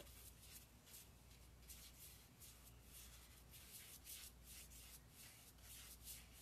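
Faint, quick scratchy strokes of a small brush working dark furniture wax into painted wooden drawer fronts, about three strokes a second.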